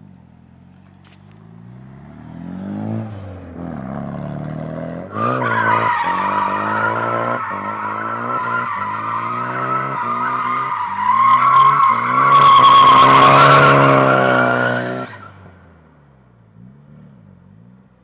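Nissan S14 drifting: its engine revs up, then the tyres squeal loudly for about ten seconds from around five seconds in, the engine revs rising and falling again and again underneath. The squeal peaks near the end of the slide and stops abruptly, leaving the engine running low.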